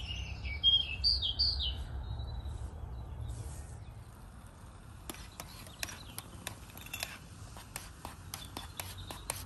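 A small bird sings short high chirping phrases for the first couple of seconds. From about halfway, a teaspoon clinks lightly against a metal camping mug as coffee is stirred, two or three clinks a second.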